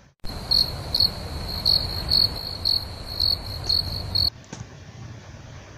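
Crickets chirping: a steady high trill with louder chirps about twice a second, cutting off suddenly about four seconds in, leaving only a faint hiss.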